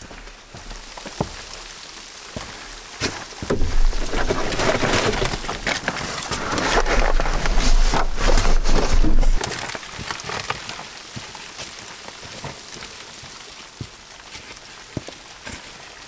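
Light rain pattering steadily, with scattered sharp ticks of drops. From about three and a half to nine and a half seconds in, a louder rustling with a low rumble comes from movement close to the microphone.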